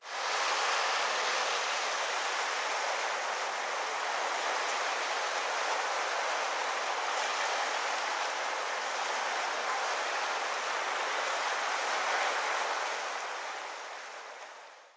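Small sea waves breaking and washing onto the shore, a steady hiss that fades out near the end.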